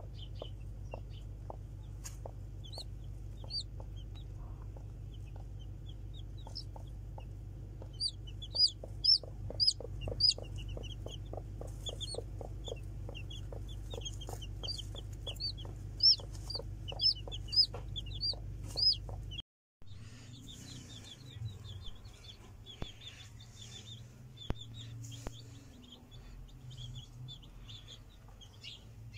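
Newly hatched chicks peeping in runs of short, high chirps, loudest about a third of the way in and again past halfway. Under them are a steady low hum and a regular ticking about two or three times a second. After a sudden break about two-thirds in, softer peeping goes on without the hum.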